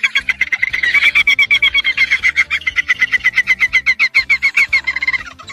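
Dolphin chattering: a fast, unbroken run of short high chirping pulses, about ten a second, that stops shortly before the end.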